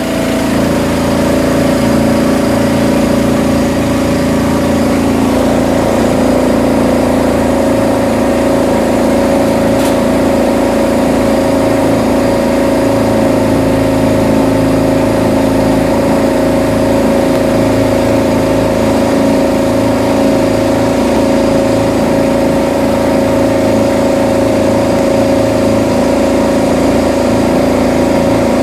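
Boat engine running steadily under way, its pitch stepping up slightly about five seconds in.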